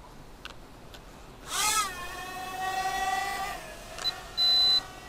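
Toy hexacopter's six small motors spinning up: a rising whine that settles into a steady hum as it lifts off, then eases off. Near the end a short, loud, high-pitched beep.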